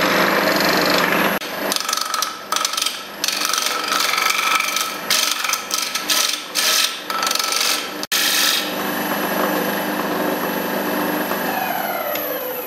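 Record Power woodturning lathe running while a gouge roughs a square wood blank round, the cutting coming in rapid, irregular bursts of scraping. Near the end the lathe is switched off and its motor winds down, the whine falling in pitch.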